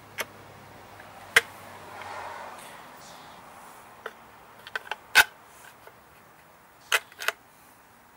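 Metal mower parts being handled and set down as the muffler comes off the engine: a few sharp separate clinks and knocks, the loudest a little past halfway, with a soft rubbing rustle early on.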